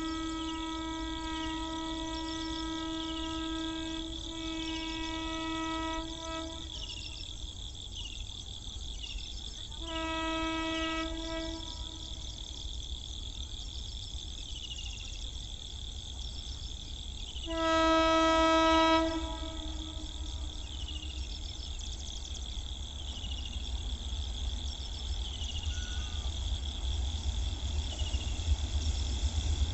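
Horn of a WAP-7 electric locomotive sounding three times: a long blast of about six seconds with a brief dip partway, a shorter one about ten seconds in, and a louder short blast a little past halfway. The low rumble of the approaching train grows toward the end.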